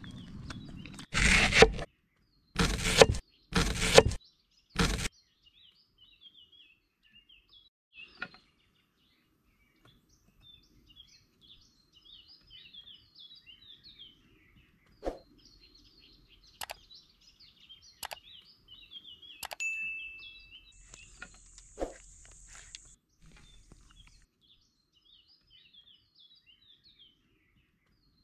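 Four short, loud noises in the first five seconds, then small birds chirping steadily, with a few sharp clicks and knocks scattered through.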